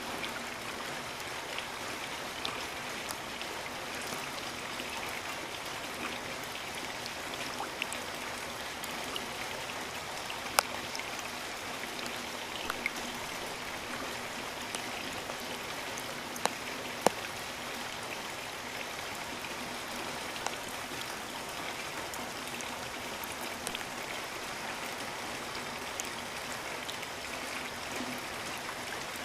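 Steady rain falling, an even hiss with scattered sharp drop impacts, a few louder ones about ten and seventeen seconds in.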